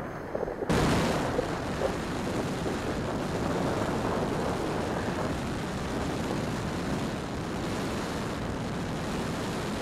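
Air rushing over the microphone of a camera mounted under an E-flite Timber X RC plane in flight, a steady loud noisy rush. It cuts in abruptly less than a second in, after a short, duller and quieter stretch.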